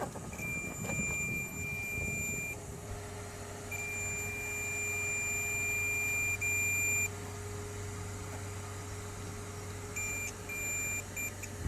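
Multimeter continuity beeper sounding as the probes test the laptop motherboard's USB 5 V circuit: one steady high beep held about two seconds, then a longer one of about three seconds, then several short broken beeps near the end. The continuous tone signals a short to ground, which the technician puts down to a shorted capacitor. A steady low hum runs underneath.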